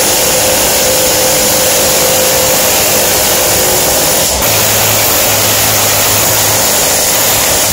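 Pneumatic air hammer (air chisel) running continuously, its bit chiselling into the rusted rocker panel and underbody metal of a 2004 Mazda 3. It is loud and steady, with a brief break about halfway through.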